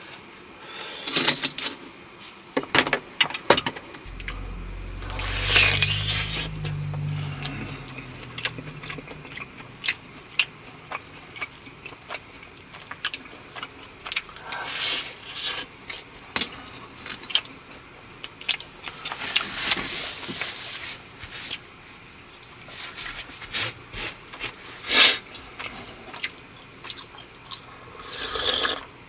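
Irregular clicks, taps and short scrapes of small objects being handled in a confined space, with a low rumble about four to eight seconds in.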